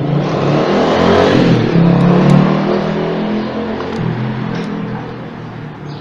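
American-brand blender's electric motor running briefly, with a low wavering hum and a hiss of brush noise. It comes up quickly, is loudest in the first two and a half seconds, then dies away gradually.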